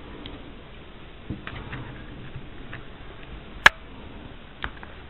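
Sparse small clicks and taps of hand tools against the parts of an RC car's rear end during disassembly, with one sharp click about three and a half seconds in.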